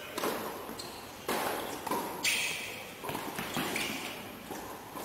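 Doubles tennis rally on a hard court: rackets striking the ball with sharp pops about a second apart, with players' footsteps on the court between the shots.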